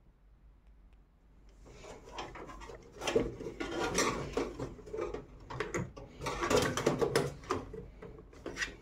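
Cables and a SATA power connector being handled and pushed onto an SSD inside a desktop PC case: scattered plastic clicks, rubbing and light knocks that start after about a second and a half and come thickest near the middle and towards the end.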